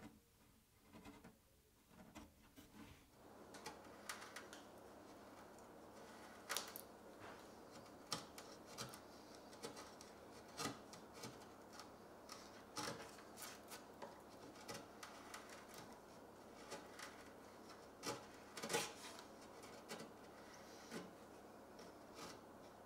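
Faint, short paring cuts of a hand chisel shaving wood as dovetails are trimmed flush with the case front, one scraping stroke every second or two.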